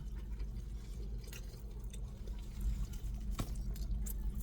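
Someone chewing fried chicken, with small wet clicks and crunches, over a low steady hum.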